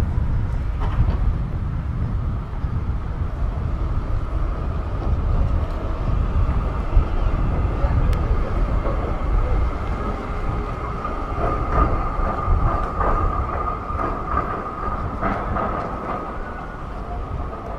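Street traffic rumble under a steady high-pitched whine that grows stronger in the second half.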